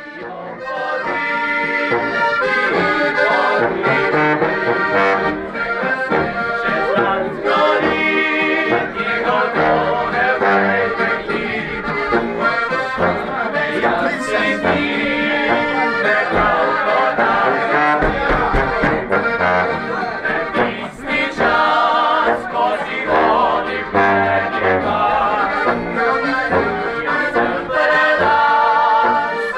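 Accordion music with brass instruments playing along, a traditional folk-style tune that starts up just at the beginning and plays on steadily.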